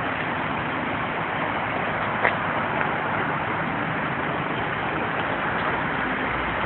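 Steady hiss of heavy rain pouring on a wet city street, with traffic rumbling under it. The low rumble grows near the end, and there is one sharp tick about two seconds in.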